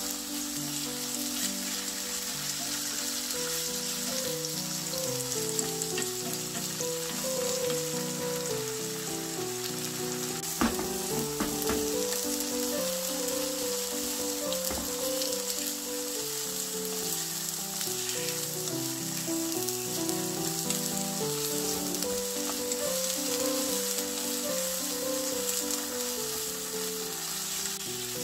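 Tofu sizzling as it pan-fries in a little cooking oil in a nonstick frying pan, a steady frying hiss. A few sharp knocks about ten seconds in as a wooden spatula turns the pieces, under soft background music with a melody.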